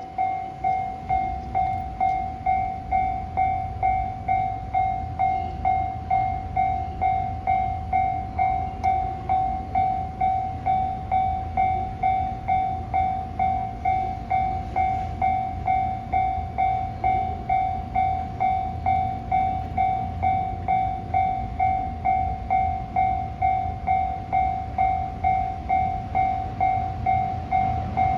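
Japanese railway level-crossing warning bell ringing steadily, its electronic tone struck about one and a half times a second, each strike dying away, over a low rumble.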